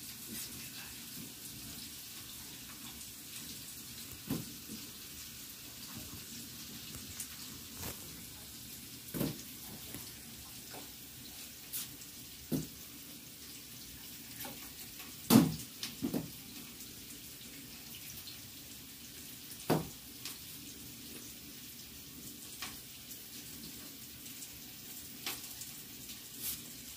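Pieces of marinated mutton handled in a steel pot and set down on a wire rack: scattered soft knocks and clicks, a sharper one about halfway through, over a steady low hiss.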